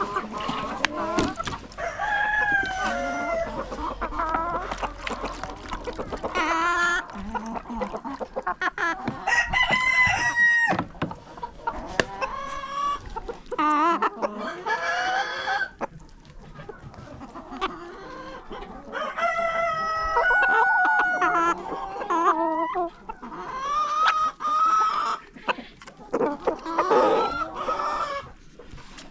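Chickens clucking and calling one over another, with at least one rooster crowing. Scattered clicks run through it.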